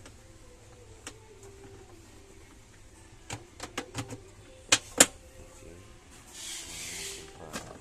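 A run of sharp clicks and knocks from the washing machine's plastic parts being handled, the loudest about five seconds in. A brief hiss follows, then a few more clicks near the end.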